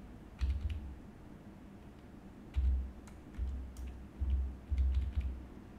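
Computer keyboard typing: irregular keystrokes in short runs, each click with a dull low knock.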